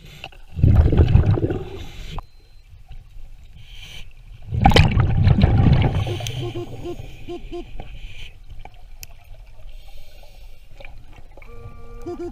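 A scuba diver's exhaled breath bubbling up past the underwater camera in two long, loud gurgling rushes, about half a second in and again at about four and a half seconds. A few short, evenly pitched beeps follow the second rush.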